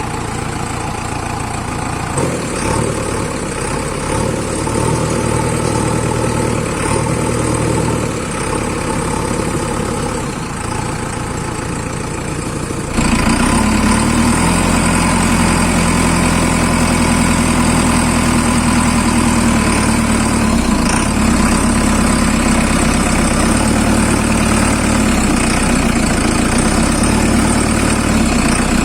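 A diesel engine of heavy earth-moving equipment running steadily. About halfway through, the sound jumps suddenly louder, with a deeper hum.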